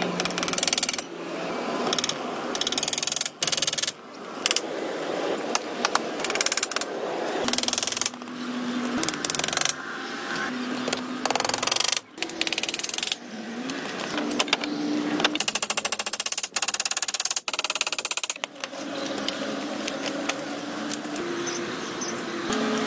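A metal blade knocking on round wooden slices as they are fixed on as roof shingles: irregular sharp knocks, with a fast run of rapid taps about two-thirds of the way through.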